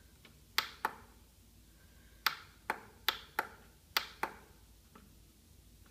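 Menu keys on a FlySky FS-T6 radio transmitter being pressed, about eight short sharp clicks, mostly in quick pairs.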